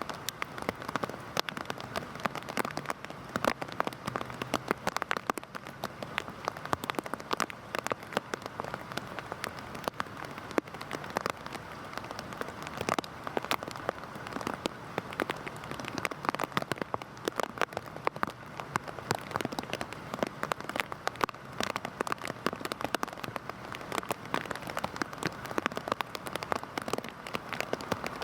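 Heavy rain falling steadily: a dense patter of individual drops striking a surface over a continuous hiss.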